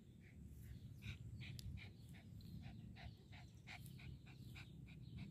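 A dog close by, breathing in quick faint puffs about three times a second, over a low rumble.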